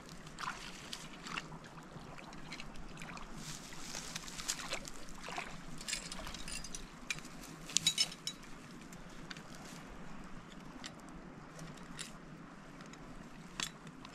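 Shallow river water sloshing and splashing while a beaver trap set is worked in it by hand, with scattered knocks and clicks and a short cluster of sharper ones about eight seconds in.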